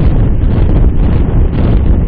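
Heavy wind buffeting the microphone of a bike-mounted camera on a time-trial bike moving at about 24 mph: a loud, steady, low rumble.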